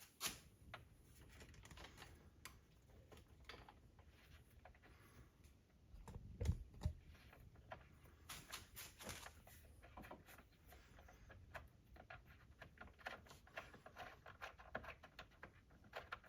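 Faint, irregular small clicks and ticks of a hand-held Allen wrench working the long mounting screws out of a subwoofer's enclosure, with a low thump about six and a half seconds in.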